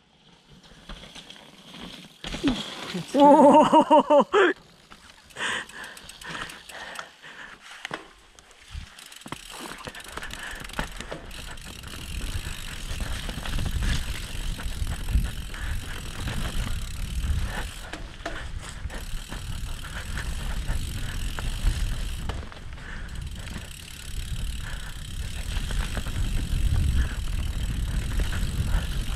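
Mountain bike ridden down a rough, muddy dirt trail: tyres rumbling over roots and mud, with the chain and frame rattling, getting steadily louder from about ten seconds in as speed builds. A short, loud pitched sound comes about three seconds in.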